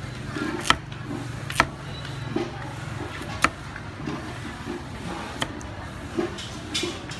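Cleaver chopping a carrot on a thick wooden chopping block: four sharp knocks, one to two seconds apart, over a steady low hum.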